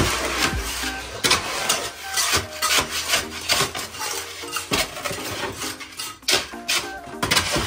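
Steel shovel scraping and scooping through wet concrete mix in a plastic wheelbarrow: repeated uneven strokes of grating and knocking as the mix is turned over.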